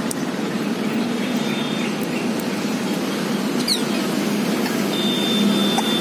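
Steady hum of city traffic, with a few faint high bird calls over it: a short falling whistle about halfway through and a thin held whistle near the end.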